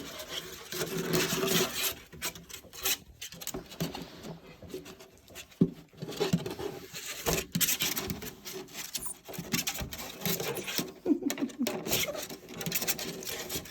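Six-week-old Welsh Terrier puppies playing and scuffling: many small scratching, rubbing and pattering sounds of paws and claws on the floor and of the puppies tussling over a toy, with scattered clicks.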